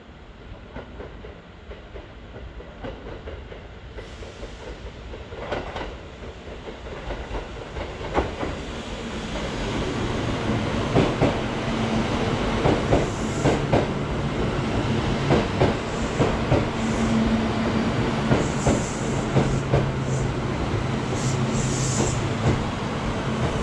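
A Kintetsu electric train coming into the platform, growing louder over the first ten seconds or so. Its wheels then clack over the rail joints again and again beneath a steady running hum.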